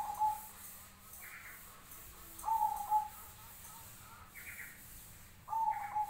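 Zebra dove (black cemani perkutut) cooing: three phrases about three seconds apart, each a few quick notes ending in a longer held note. Fainter, higher calls come in between.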